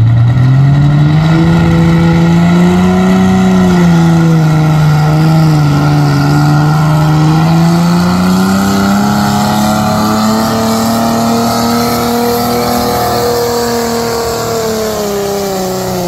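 Naturally aspirated super stock pulling tractor engine under full power, dragging the weighted pulling sled. Its pitch climbs steeply at the launch, wavers down and back up through the pull, and falls near the end.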